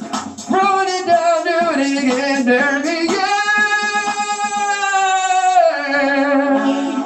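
A man sings into a handheld microphone over backing music. He sings a few short phrases without clear words, then holds one long note for about two and a half seconds in the middle and drops to a lower, quieter phrase near the end.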